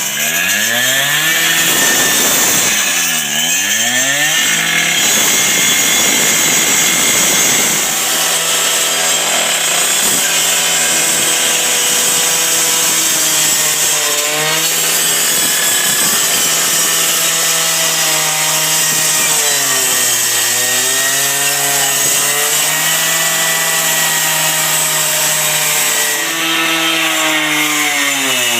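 Two-stroke partner saw (cut-off saw) with a 14-inch blade cutting into a heavily reinforced sectional garage door. The engine revs up in the first second, dips twice soon after, then runs at high revs with a steady hiss from the blade, its pitch sagging under load around two-thirds of the way through and again near the end.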